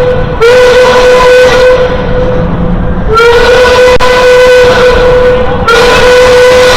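A loud single-pitched horn sounding three long blasts, each scooping up slightly in pitch as it starts.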